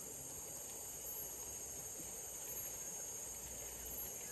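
Steady high-pitched insect buzz over a faint even hiss of outdoor ambience.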